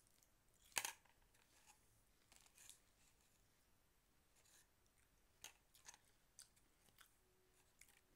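Someone biting into and chewing a piece of fresh watermelon: one crisp crunch about a second in, then faint chewing and a few soft mouth clicks; otherwise very quiet.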